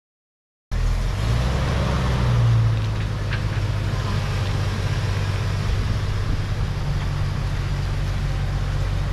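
Engine of a 1998 Jeep Wrangler running steadily, starting suddenly just under a second in and cutting off at the end.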